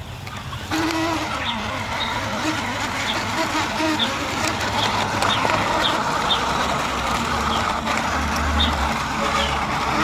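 Toy dump truck's plastic wheels rolling and grinding over gravel and dirt, with short, high bird chirps repeating throughout.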